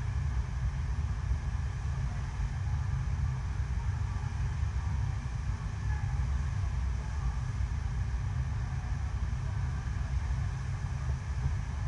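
Steady rush and deep rumble of an artificial surf wave, the pumped sheet of water pouring over the ride surface close to the microphone.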